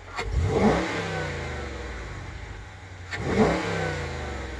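2018 Dodge Charger R/T's 5.7-litre Hemi V8 blipped twice in sport mode, heard close to its Airaid cold air intake filter. Each rev climbs quickly and sinks back to idle over about a second and a half, with the rush of air drawn through the intake.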